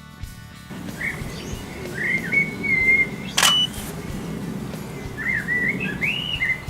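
Garden birds chirping and singing in two short phrases, with a camera shutter firing once about halfway through.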